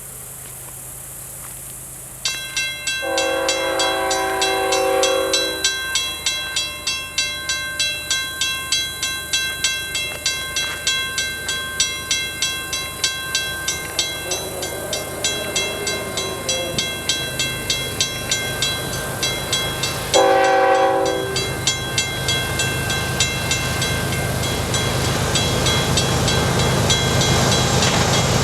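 A railway crossing bell starts ringing about two seconds in, at about two strokes a second. The air horn of an approaching CN diesel freight locomotive sounds a long blast soon after and a short one later, while the low rumble of the oncoming train grows.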